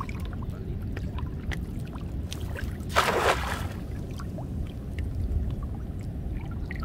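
A hand-thrown cast net (atarraya) lands on the water with a brief splash about three seconds in, over a steady low rumble.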